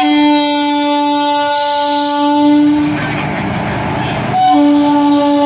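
Indian Railways WAP-4 electric locomotive's horn sounding as it runs in alongside the platform: a long blast of about three seconds, a short gap filled with the rumble of the passing locomotive, then a second blast starting about four and a half seconds in.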